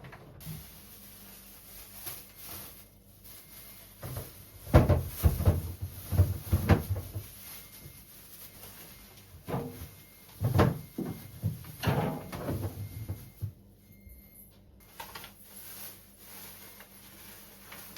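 Knocks and clatter of containers and shelf or drawer parts being handled while a refrigerator is stocked. The clatter comes in two busy stretches, about five seconds in and again from about ten to thirteen seconds.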